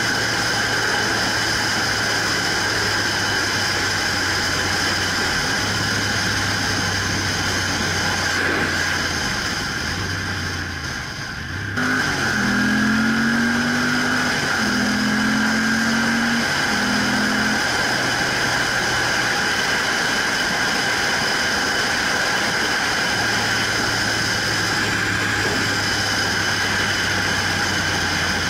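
Motorcycle engine running at road speed under steady wind rush. About ten seconds in it eases off for a moment, then picks up again and climbs in pitch in three short steps as it accelerates through the gears.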